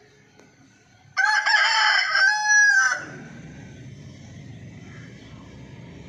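A rooster crows once: a single loud crow about two seconds long, starting about a second in.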